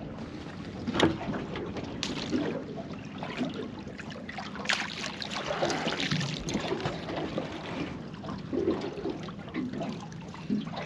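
Water lapping and trickling around a small boat, with a few light knocks.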